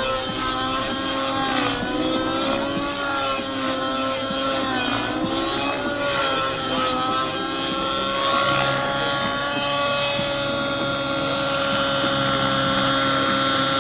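Align T-Rex 700 Nitro RC helicopter's two-stroke glow-fuel engine and rotor running at full power during 3D aerobatics. The pitch dips and rises several times over the first half, then holds a steady tone as the helicopter flies low near the ground.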